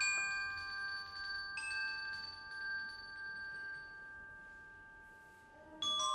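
Metal mallet-percussion or chime notes being struck and left to ring: two strikes about a second and a half apart, a long fade over several seconds, then a new run of quicker strikes near the end.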